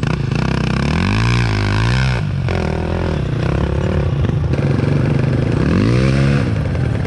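Enduro dirt bike engines running, revved up and back down twice: once around a second in and again near the end.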